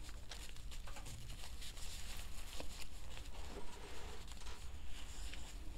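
Quiet room tone: a low steady hum under a faint hiss, with a few small faint clicks.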